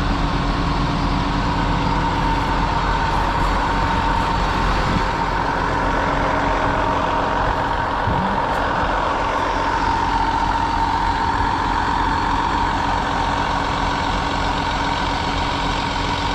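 John Deere 8400i self-propelled forage harvester running steadily while chopping silage: a continuous heavy engine and machinery drone with a steady high whine over it.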